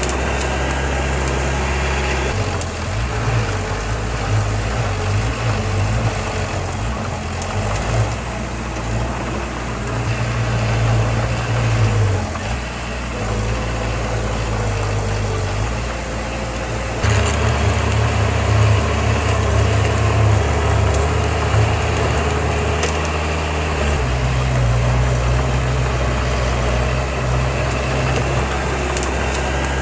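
Heavy diesel engine of earthmoving machinery running under changing load, its low drone shifting in pitch a few times and growing louder about halfway through.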